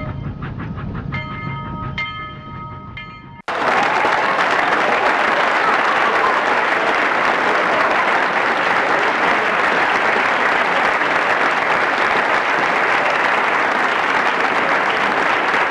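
A low rumble with three short chord-like tones about a second apart, cut off suddenly after about three and a half seconds by steady applause from a large audience.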